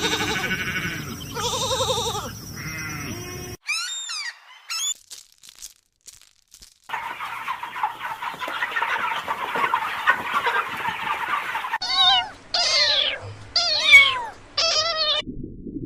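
A string of different animal calls cut one after another: pitched bleat-like calls at the start, short chirps, a stretch of steady hissing noise, then a quick run of loud rising-and-falling calls near the end.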